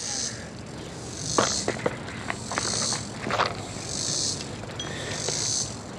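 Insects buzzing high in short pulses, a bit more than a second apart, with a few sharp clicks and knocks about a second and a half and three and a half seconds in.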